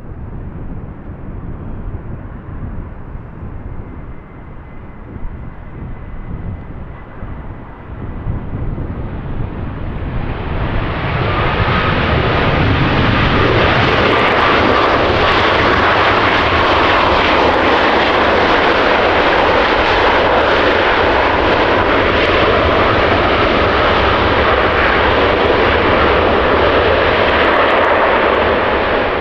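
Boeing 737 MAX 8 airliner's CFM LEAP-1B jet engines, faint at first under low wind rumble, then swelling about a third of the way in to a loud, steady jet roar as the plane passes close.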